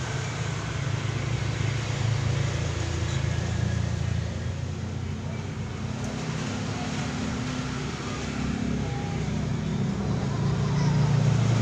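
Steady low engine hum of motor traffic, with no distinct single event.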